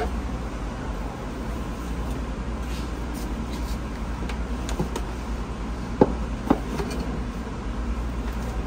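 Steady low hum of indoor room ambience, with a pair of short knocks about half a second apart some six seconds in and a couple of fainter taps just before.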